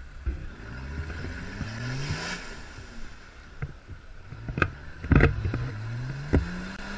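Off-road 4x4 engine revving in rising surges as the vehicle ploughs through a deep mud pool, with sharp knocks and splashes. The loudest knocks come about five seconds in.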